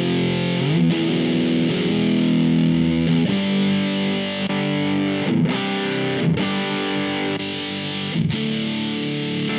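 Electric guitar played through the IK Multimedia X-Drive pedal on a heavy fuzz setting: thick, sustained distorted chords that slide into new chords several times.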